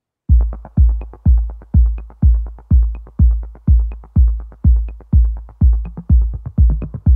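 Electronic background music: a steady drum-machine beat with a deep kick a little over twice a second and light ticks between the kicks, starting a moment in.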